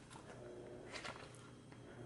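A page of a glossy photobook being turned by hand: a brief paper swish about a second in, over a faint low steady hum.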